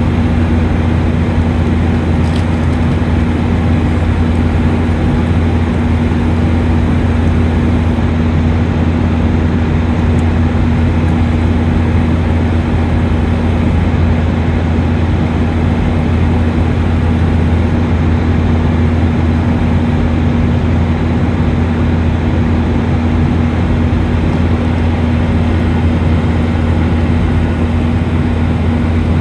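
Steady cabin noise inside a Boeing 737-800 in flight: the drone of its CFM56-7B jet engines mixed with rushing airflow, with a strong low hum and a steady tone beneath it.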